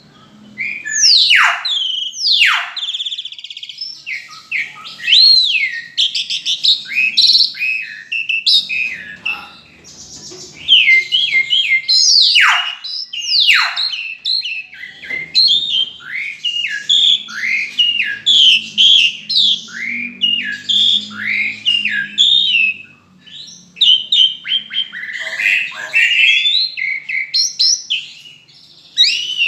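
Caged starling singing a long, varied song of quick chirps and whistles, with a few long falling whistles among them.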